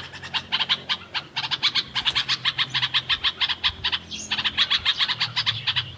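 Bulbul chirping in fast runs of short, sharp notes, about eight a second, broken by brief pauses.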